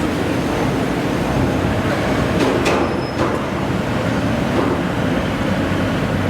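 Steady heavy rumble of forge-shop machinery, with two or three short metallic clanks a little before the middle.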